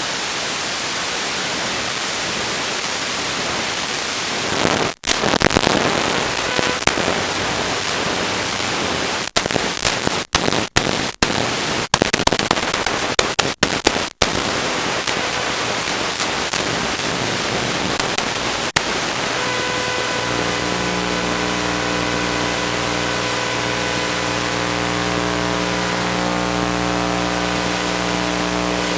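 Steady hiss of static on the FPV video link's audio. Between about five and fourteen seconds in it cuts out and clicks several times as the signal breaks up. About twenty seconds in, a steady hum with several overtones joins the hiss.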